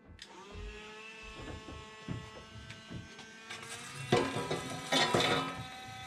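A small electric motor whining steadily, one tone slowly rising in pitch, with a few sharp knocks of handling about four and five seconds in.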